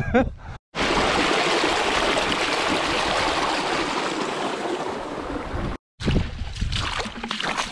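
Water rushing and foaming over weed-covered rocks: a steady, loud rush that starts about a second in and cuts off just before six seconds in. Then boots tread and splash through shallow water on a wet shore.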